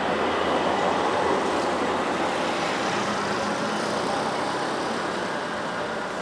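A tram passing close by on its rails, its running noise loud and gradually fading as it moves away.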